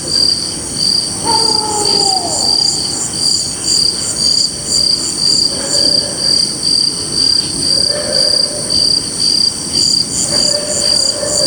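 Night chorus of crickets chirping in a steady, even pulse about one and a half times a second, over a higher continuous insect buzz. A faint falling call comes a little over a second in, and a few faint lower drawn-out tones follow later.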